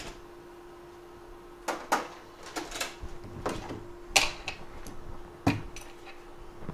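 Scattered sharp clicks and taps of small tools and parts being handled on a workbench, about eight in all and loudest about four seconds in, over a faint steady low hum.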